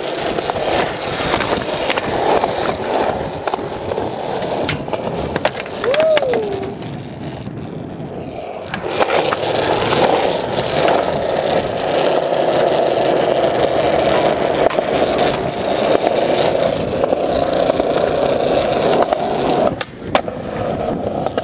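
Skateboard wheels rolling over smooth concrete, a steady rumble that gets louder from about nine seconds in. A few sharp clacks of the board against the ground cut through it.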